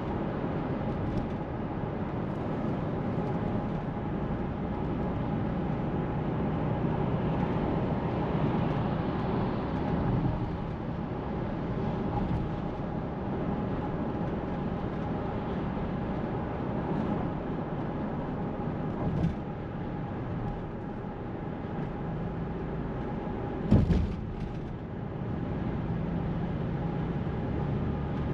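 Steady road and tyre noise of a car driving at highway speed, heard from inside the cabin, with a faint steady hum. A small thump comes past the middle, and a sharper, louder thump near the end.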